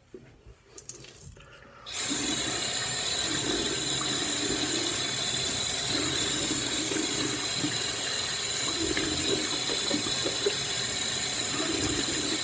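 A few faint clicks and handling noises, then about two seconds in a faucet is turned on and water runs steadily into a sink.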